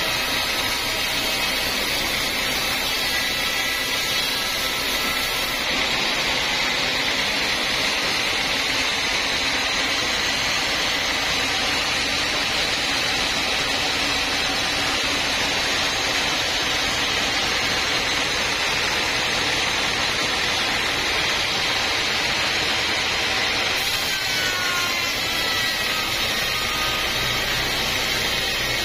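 A homemade band sawmill runs with its blade cutting lengthwise through an old teak log, a steady, loud sawing hiss over the machine's drone. The sawing sound is brightest from about six seconds in to about twenty-four, after which a few sliding whines are heard.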